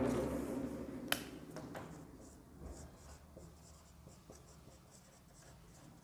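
Faint scratching of a pen or marker writing, a series of short strokes, after a louder sound that fades away over the first second or two.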